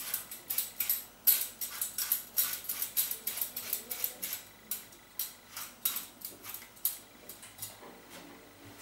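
An apple being peeled with a hand peeler, the blade scraping off the skin in quick strokes, about three a second, which thin out and fade near the end.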